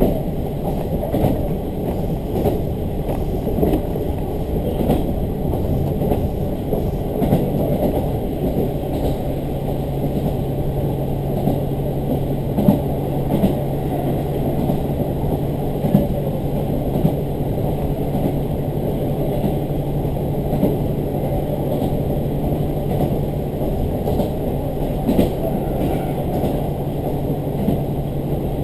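Diesel railcar running along the line, heard from inside: a steady rumble of wheels on rail and engine, with scattered small knocks. A low steady engine hum joins about eight seconds in.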